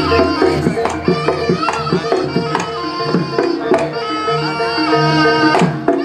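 Live jaranan gamelan music: quick hand-drum strokes over ringing pitched metal percussion.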